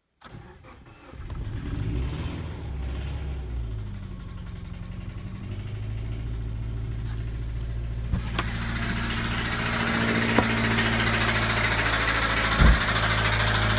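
2004 Subaru Legacy B4's EJ20 turbocharged flat-four engine catching and running, getting louder over the last few seconds. The engine knocks, which the owner suspects comes from the fourth cylinder's piston, and it starts poorly.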